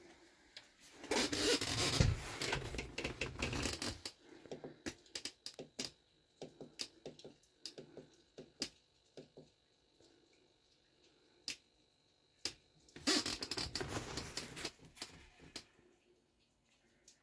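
Phone being handled close to its microphone: two stretches of rustling and scraping, with many irregular clicks and taps between them and a faint steady high whine.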